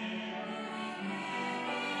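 Church choir singing, holding long sustained notes and moving to a new chord about a second in.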